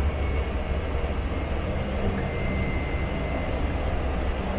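Single turboprop engine of a Cessna Caravan running steadily while the aircraft taxis, heard from inside the cockpit: a deep drone with a faint high whine over it.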